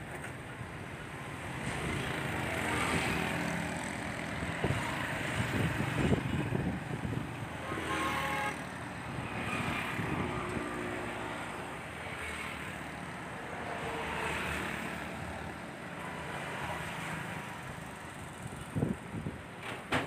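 Road traffic going past on a bridge: motorcycles and cars passing one after another, the engine and tyre noise swelling and fading with each pass.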